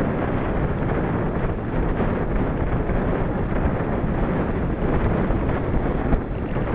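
Wind rushing over a camera microphone carried on a moving bicycle: a loud, steady buffeting noise.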